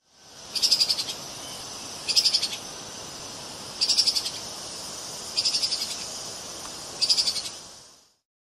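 Treeshrew (Tupaia) calling: five short, high-pitched rapid chattering trills, evenly spaced about one every one and a half seconds, over a steady background hiss.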